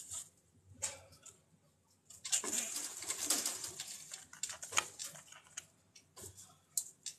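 Scratchy rustling and scraping as a chinchilla scrabbles about in a metal dust-bath tray of fine bathing dust, busiest from about two to five seconds in.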